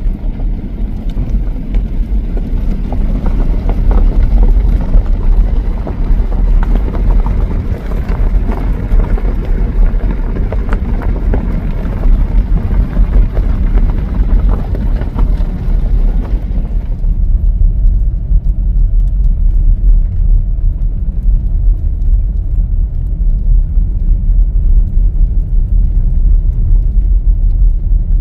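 Car on the move: steady road and engine rumble, heavy in the low end and uneven in level. About two-thirds of the way through, the higher hiss drops away, leaving only the low rumble.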